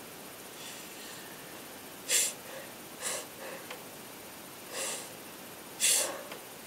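Four short, sharp bursts of breath through a person's nose, snorts or sniffs, with the loudest about two seconds in and near the end.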